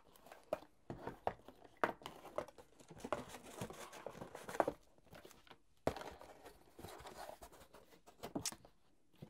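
Cardboard box and paper packaging rustling as a soldering station's parts are unpacked by hand, with scattered knocks and clicks as plastic pieces are lifted out and set down, and a sharp click about six seconds in.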